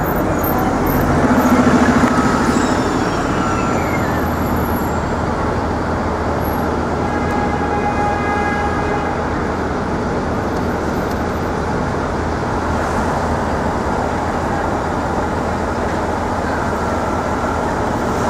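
Steady city street traffic noise: engines and tyres of passing cars and buses. A brief high tone slides downward about three seconds in.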